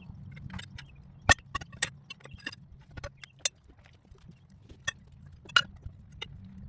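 Irregular sharp metallic clinks and knocks, the loudest a little over a second in, as tire irons lever a tractor tire's bead over its steel rim, under a low steady hum.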